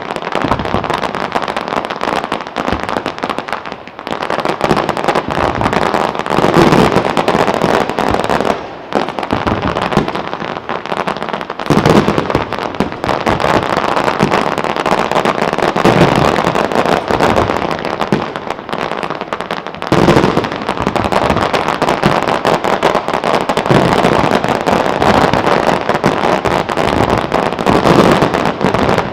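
Aerial fireworks display: a dense, unbroken barrage of shell bursts, bangs and crackling, with a few short lulls.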